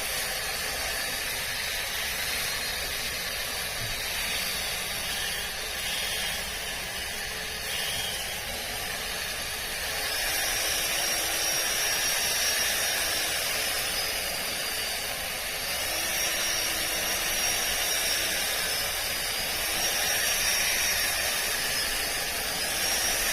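Makita 18V cordless split-shaft ground trimmer running steadily while cutting grass, with a high motor whine that swells up and falls back several times in the second half.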